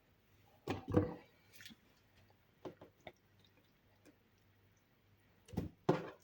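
Pieces of cut fruit being dropped by hand into a blender jar: a series of short soft thuds and knocks, loudest in a pair about a second in and another pair near the end.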